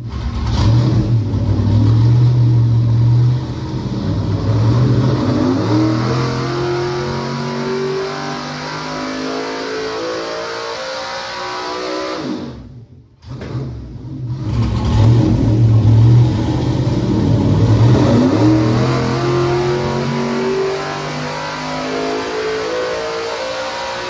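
454-cubic-inch naturally aspirated LS V8 (sleeved iron 5.3 block) on an engine dyno making two pulls. Each time the engine holds low for a couple of seconds, then climbs steadily in pitch as it revs up under load for about ten seconds. It cuts off sharply about halfway through, and the second pull starts a second later and climbs the same way.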